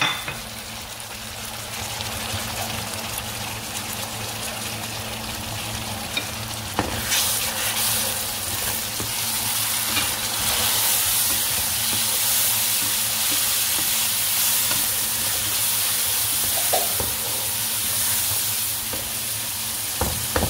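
Chopped tomatoes and fried onions sizzling in hot oil in a pan, with a spatula stirring and scraping now and then. The sizzle grows louder about seven seconds in.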